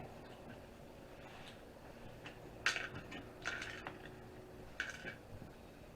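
Small metal and plastic parts of a disassembled Zip drive being handled and set down, giving a few light clicks and clinks in short clusters in the middle and second half.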